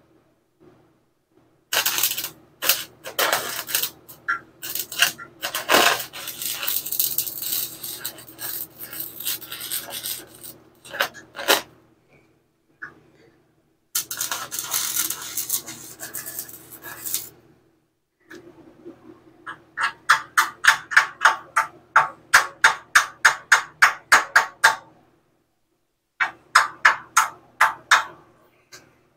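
Electric arc welding on a steel beam: the arc crackles and sizzles in several runs of a few seconds each, over a steady electrical hum from the welder. In the later runs it breaks into rapid regular pops, about four a second.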